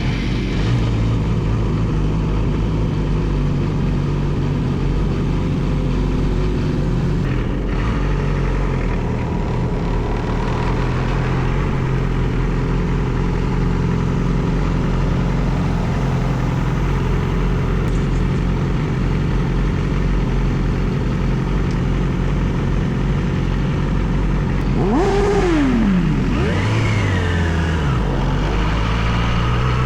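Motor vehicle engine running at a steady pitch while on the move, with a sweep in engine pitch, first falling and then rising, about 25 seconds in.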